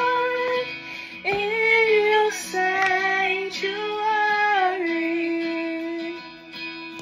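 Music: a song with a woman's voice singing long held notes that step from pitch to pitch over plucked guitar accompaniment.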